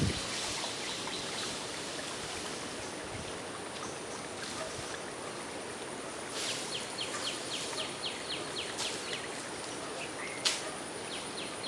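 Rural outdoor ambience: a steady high-pitched insect drone over a soft hiss, with a rapid run of short chirps, about four a second, starting around six seconds in and again near the end, and one sharp click shortly before the end.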